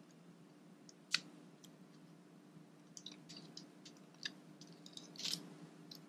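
Faint scattered clicks and scratches of fingernails picking at tape on a hard drive's connector to peel it off, with one sharper click about a second in and a run of small clicks in the second half.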